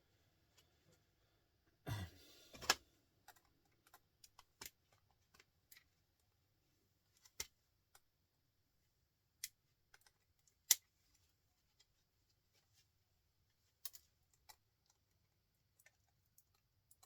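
Scattered sharp clicks and snips of hand tools working copper windings off a small electric motor, with a short scraping rustle about two seconds in.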